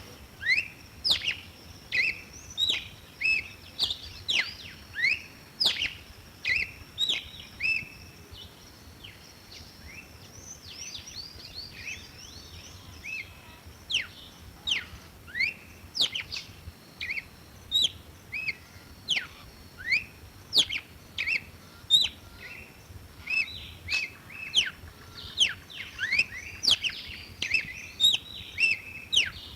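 Red-cowled cardinal singing: a long run of short, sharp whistled notes, many sweeping steeply up or down, in quick repeated phrases, softer for a few seconds near the middle.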